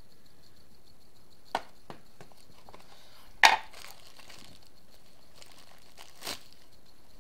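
Plastic packaging being handled while accessories are taken out of a phone box: a couple of sharp clicks, then a loud crinkle of a plastic bag about three and a half seconds in and a softer crinkle near the end. A faint steady high whine sits underneath.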